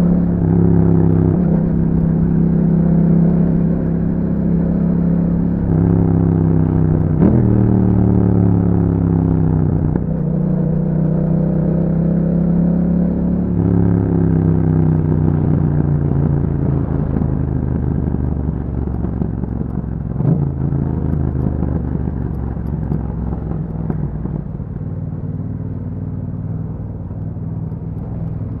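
Yamaha MT-07 689 cc parallel-twin running through an Akrapovic exhaust while riding. The revs rise and fall with several sharp breaks, about 7, 10, 14 and 20 seconds in, as gears change. It settles a little quieter toward the end.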